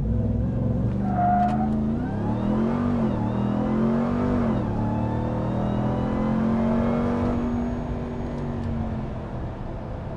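2022 Ram TRX's supercharged 6.2-litre Hemi V8 (the Hellcat engine) at full throttle from a standstill in a 0-60 run. The exhaust note comes in suddenly, climbs and drops back with quick upshifts through the first several seconds, then holds steady and eases off near the end.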